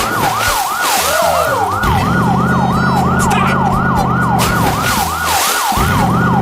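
Electronic siren in a fast yelp, its pitch sweeping up and down about four times a second without a break. A low steady drone comes in about two seconds in and drops out briefly near the end.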